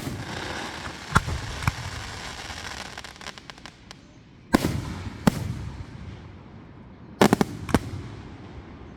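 Fireworks bursting overhead: a string of sharp bangs, each trailing off in a rumbling echo, with a brief patter of small crackles midway and a quick cluster of several bangs near the end.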